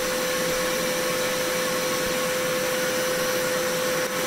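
Shop vac running steadily with a constant whine, its hose sucking up the PVC thread cut from the record blank by the lathe's stylus.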